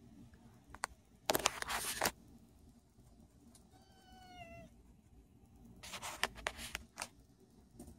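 Dwarf kitten gives one short, faint meow about four seconds in, its pitch falling slightly at the end. Bursts of rustling noise, louder than the meow, come about a second and a half in and again around six to seven seconds in.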